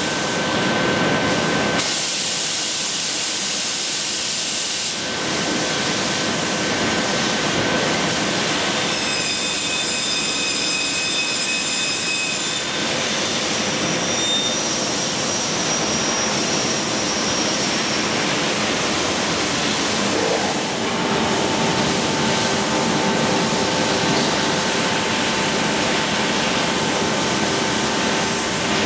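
SCM Sigma Plus beam panel saw running: a steady hiss with several constant whines, whose pitches change partway through, and a stronger burst of hiss about two to five seconds in.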